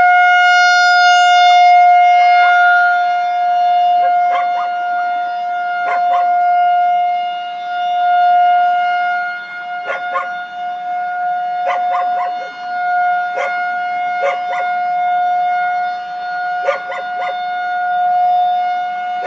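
Outdoor tornado warning siren holding one steady tone during a routine monthly test, its loudness slowly swelling and fading. Over it, dogs bark in short bursts of two or three, eight or so times.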